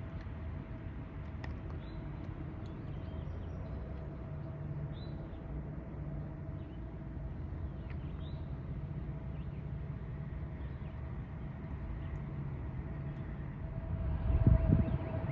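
Diesel locomotive engine running at a steady low drone, growing louder about 14 seconds in. Birds chirp faintly over it.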